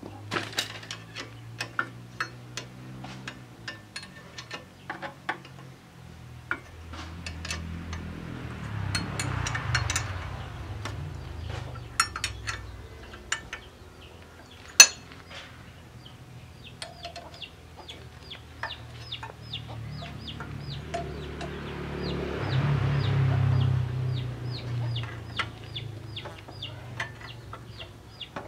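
A chicken clucking in short repeated calls, over scattered sharp metal clicks from hand work on a diesel engine. A low rumble swells and fades twice, once around a third of the way in and again near the end.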